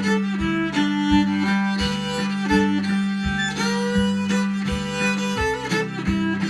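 Fiddle playing a tune over a steady low held note, with plucked strings keeping a beat about twice a second.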